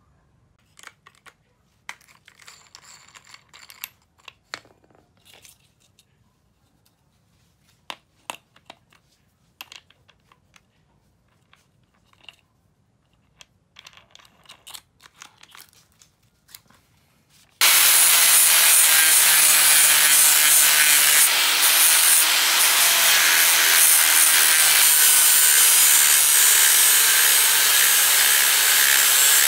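Scattered clicks and rattles of handling as a flap disc is fitted onto an angle grinder. Then, well past halfway, the angle grinder starts abruptly and runs steadily, grinding the rusty steel sword blade.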